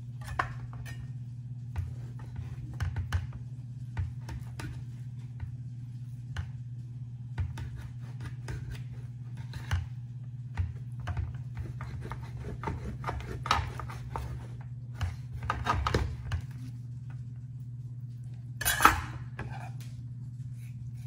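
Chef's knife cutting a rack of lamb into chops on a metal baking pan: irregular knocks and scrapes as the blade hits the pan, with a louder clatter near the end. A steady low hum runs underneath.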